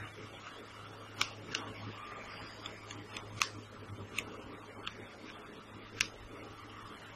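Chalk writing on a blackboard: irregular sharp taps and faint scratching as the chalk strikes and drags across the board, over a steady low hum.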